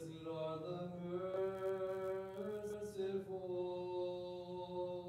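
Greek Orthodox funeral chant sung by a lone male voice, holding long drawn-out notes that shift in pitch a couple of times.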